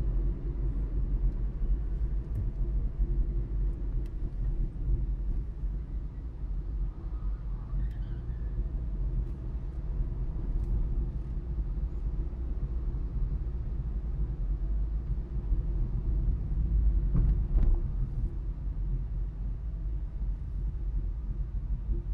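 Steady low rumble of a car driving along a road, engine and tyre noise, with a brief louder thump about seventeen seconds in.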